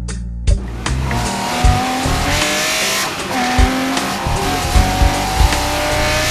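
Land Rover driving on a gravel track, heard from inside the cabin: the engine runs with a thin whine that rises slowly, over a steady hiss of tyre and wind noise that sets in about half a second in. Background music with a steady bass beat plays underneath.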